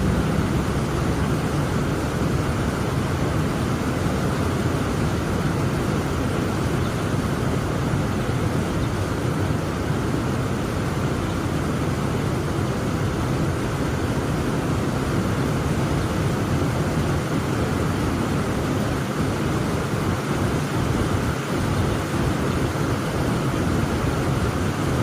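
Heavy rain falling in a steady, dense rush with a deep undertone.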